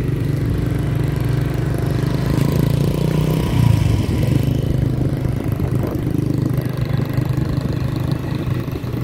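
Small motorcycle engine running steadily as the bike is ridden, heard from on the bike itself.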